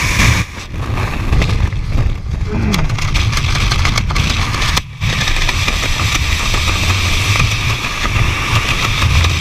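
Heavy wind noise on a skydiver's helmet-camera microphone: a steady rush with a deep rumble. It drops out briefly twice, about half a second in and near the middle.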